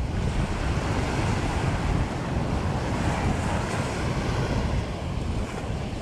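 Small ocean waves breaking and washing up a sandy beach, the wash swelling through the middle, with wind rumbling on the microphone.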